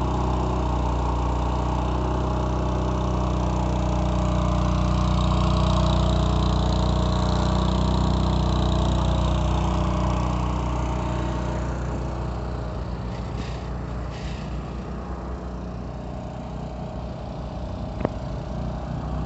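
Husqvarna 2 HP spray engine running steadily while driving an HTP sprayer pump that sends a high-pressure water jet well up into the air. The sound grows somewhat quieter after about ten seconds, and there is a single sharp click near the end.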